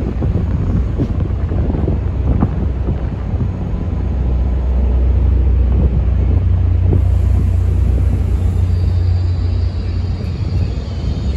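Low rumble of a Caltrain diesel commuter train rolling slowly into the station, mixed with wind buffeting the microphone. A faint high squeal comes in near the end.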